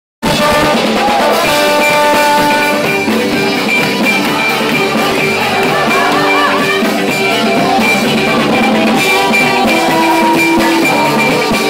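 Live rock band playing loudly, with trombones holding notes over electric bass guitar and drums.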